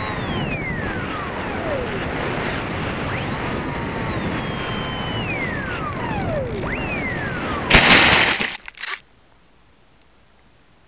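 Onboard sound of a Skysurfer (Bixler) foam RC plane: wind rush over the airframe with the electric motor and propeller whining down in pitch several times as the throttle is cut. About eight seconds in comes a loud crunching impact lasting about a second as the plane hits the ground, and then everything goes quiet.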